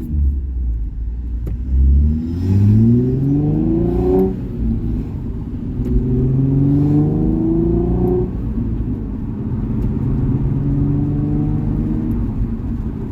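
Nissan 350Z's 3.5-litre V6 running through its exhaust. It starts with a deep low rumble, then is revved up twice, the note climbing for about two seconds each time before the revs fall back. Near the end it holds a steadier, lower note. A few short pops come through around the rev drops.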